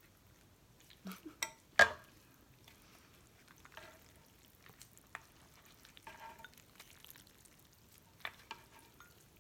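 Utensils clinking against a bowl while noodles in broth are stirred, with a few sharp knocks in the first two seconds, the loudest about two seconds in, and another near the end.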